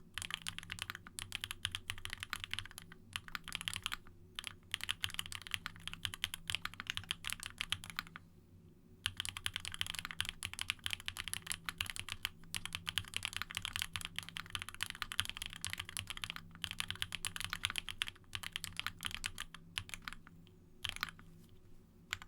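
Fast, continuous typing on a Monstargear Sangeo60 custom 60% keyboard with an aluminium plate, lubed Durock POM linear switches and GMK ABS double-shot keycaps, key strokes running in quick rapid runs. Typing pauses for about a second about eight seconds in and thins out near the end.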